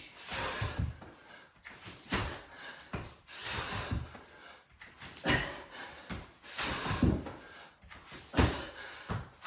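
Burpees on a rubber gym floor: repeated thuds of feet and hands landing, about one every second to second and a half.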